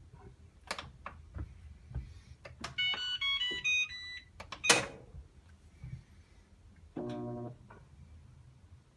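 Whirlpool Cabrio washer's control panel being operated: several button clicks, then a quick tune of short electronic beeps about three seconds in. A sharper click follows, and a brief low buzz comes about seven seconds in.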